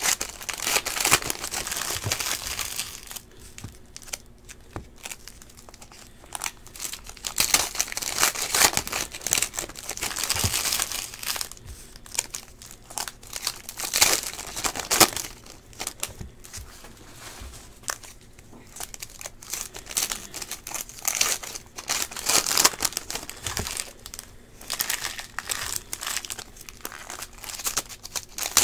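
Plastic trading-card pack wrappers being opened and crumpled by hand, a crinkling crackle that comes in irregular bursts with short pauses between.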